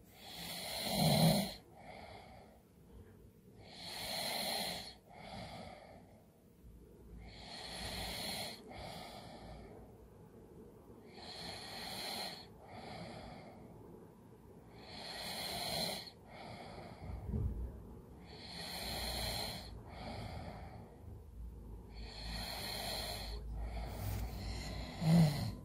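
A person snoring in deep sleep: about seven raspy snoring breaths, one every three to four seconds. Each is a louder rasp followed by a shorter, softer one.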